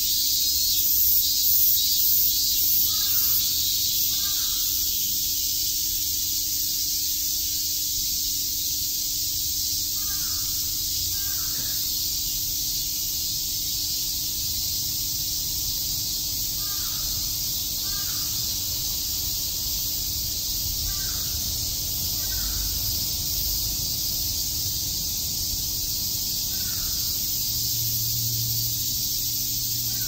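A dense chorus of cicadas buzzing steadily and high-pitched, with a rhythmic pulsing call in the first few seconds. A fainter bird calls in pairs every few seconds.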